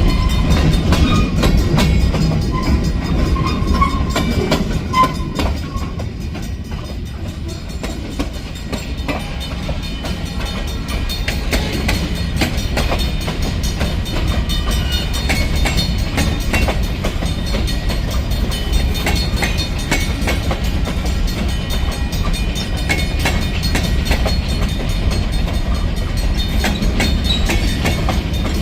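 Freight train rolling past: a steady rumble, with the wheels clicking over the rail joints again and again.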